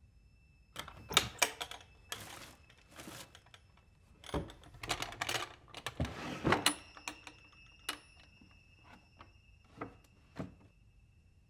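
Hands rummaging through a wooden desk drawer: irregular knocks, clicks and short rustles as objects are moved about and shifted, dying away about a second before the end.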